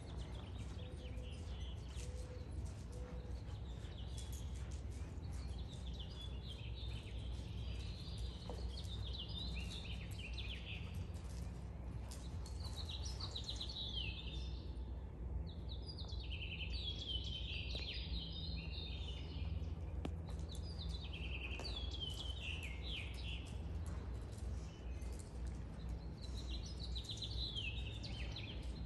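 A songbird singing, repeating short phrases of quick descending chirps every few seconds, over a steady low hum.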